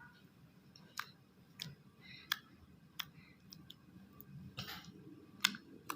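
Homemade slime being stirred and worked in its container with activator: irregular sharp clicks and short sticky smacks, roughly one a second.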